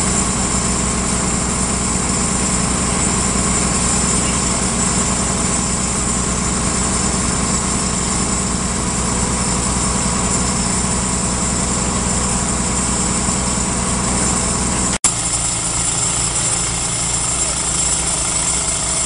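A diesel engine running steadily at idle, a low, even hum, with a brief dropout about fifteen seconds in where the recording cuts.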